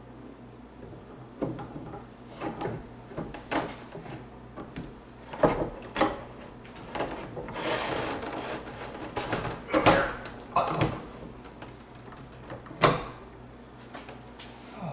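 Wooden barn door being handled on its steel rolling barn-door hardware with 5-inch wheels: a series of irregular knocks and clunks, with a longer rubbing, rolling stretch about halfway through.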